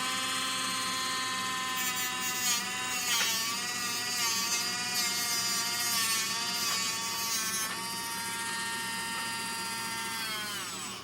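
Small high-speed electric rotary tool running, used to cut a metal spring down to size. Its pitch sags briefly a few times under load, then winds down near the end.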